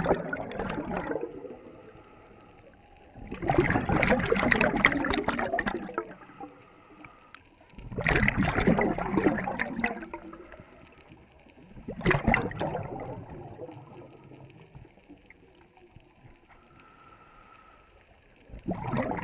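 Scuba regulator exhaust: a diver's exhaled breath bubbling out underwater in a rush about every four seconds. In the pauses between the rushes there is a fainter hiss, from breathing in through the regulator.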